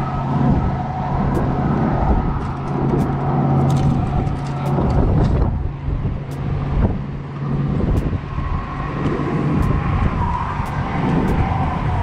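Motor vehicle traffic: a steady low rumble with an engine hum that dies away about eight seconds in, and scattered light clicks over it.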